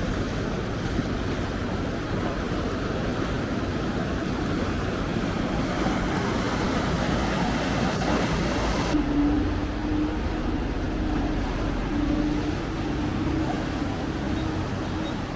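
Boat engines running on open water, with water washing and wind on the microphone. About nine seconds in the high hiss cuts off suddenly, leaving a steady low engine hum.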